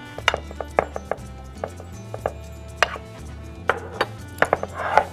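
Metal spoon clinking and knocking against a ceramic plate while marinade is spooned over raw chicken: a dozen or so sharp, irregular clicks, some ringing briefly, over quiet background music.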